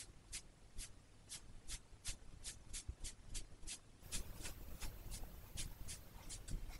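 Makeup brush stroking brown brow powder onto a mannequin head's eyebrow in short, crisp strokes, about three a second.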